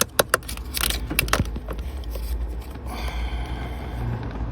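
Hands handling a car's wiring harness and its plastic sheathing: a quick run of sharp clicks and rattles in the first second and a half, then softer rustling over a low hum.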